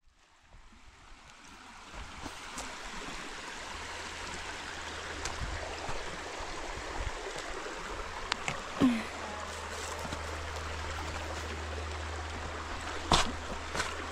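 Steady rush of running water, fading in over the first couple of seconds, with a couple of brief knocks.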